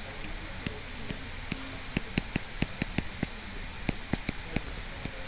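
Stylus tapping on a drawing tablet while handwriting: about fifteen sharp, uneven taps, thickest around the middle, over a steady hiss.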